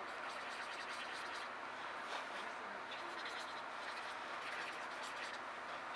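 Pencil scratching on sketchbook paper in several short spells of strokes, over a steady background hiss.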